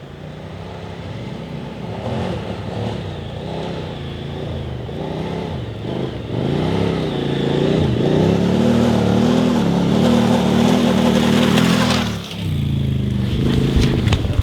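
Adventure motorcycle's twin-cylinder engine revving up and down as the throttle is worked off-road, growing louder toward the last third. It cuts back sharply for a moment near the end, then picks up again.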